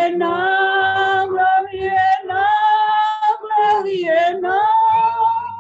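A woman singing a slow hymn solo, holding long notes with short breaks between phrases, heard over a video call.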